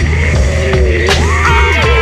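Electronic music with a steady bass line, held synth tones and drum hits.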